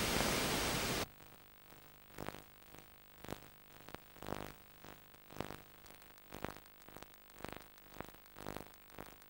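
Noisy end of a VHS tape's trailer audio that cuts off abruptly about a second in. It leaves faint tape hiss with soft pulses about once a second.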